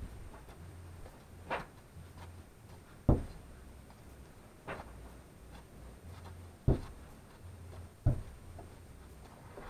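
A hand tool chopping down into a hard dirt floor, five strikes a second or two apart, three of them sharp and loud.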